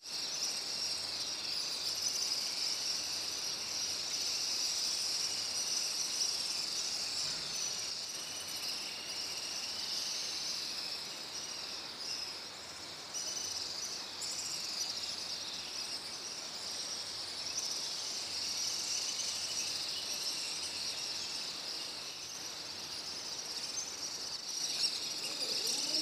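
A dense, steady, high-pitched chorus of chirping and chirring that never pauses.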